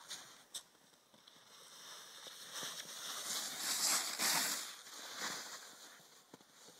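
Plastic snowboard sliding and scraping over snow: a hiss that swells as the board passes close, loudest about four seconds in, then fades as it rides away.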